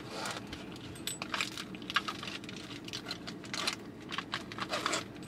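Small items being packed and shuffled into a car's centre console compartment: a run of light, irregular clicks and rattles of small hard objects knocking together.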